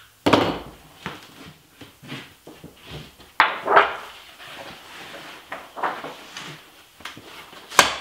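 Thin aluminum sheet being flexed up and down along a razor-knife score line to break it: loud wobbling, rattling sheet-metal noise in bursts, the biggest just after the start and about three and a half seconds in, then a sharp crack near the end as the sheet gives.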